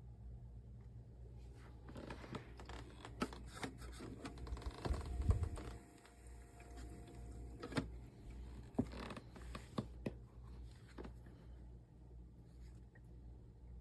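Irregular clicks, taps and rustling of something being handled, with a dull thump about five seconds in, over a low steady hum.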